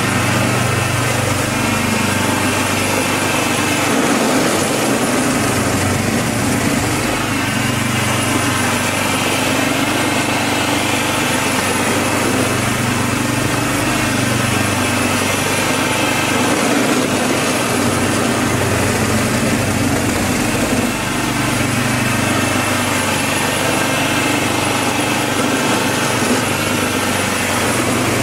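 Small engine of a MARKO walk-behind tiller running steadily under load, driving a belt-driven snow blower attachment that clears and throws snow.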